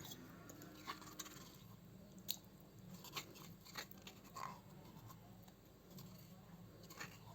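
Faint, scattered light taps and scrapes of coarsely pounded garlic and green chilli being scraped into a bowl of oil, over a low steady room hum.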